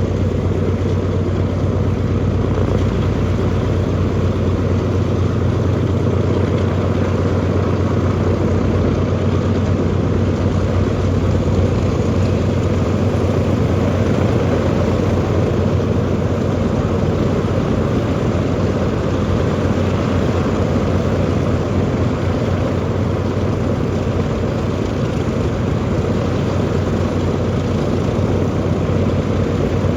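Boeing B-29 Superfortress's Wright R-3350 radial piston engines running steadily, a loud, even drone with a strong low hum that holds at a constant speed.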